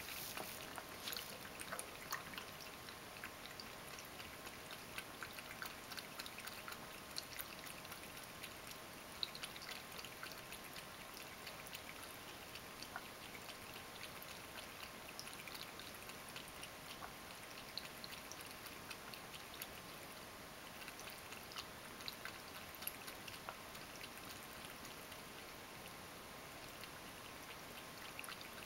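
Ragdoll cat lapping water from a water-dispenser bowl: a long, faint run of small wet ticks.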